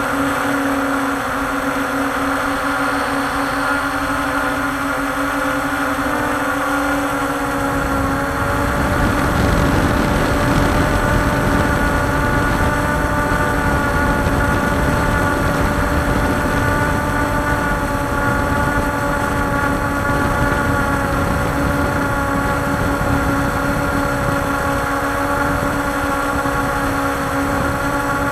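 Walkera Scout X4 quadcopter's four electric motors and propellers whining steadily in flight, heard from its own onboard camera, the pitch shifting slightly as it manoeuvres. From about eight seconds in, a low wind rumble buffets the microphone.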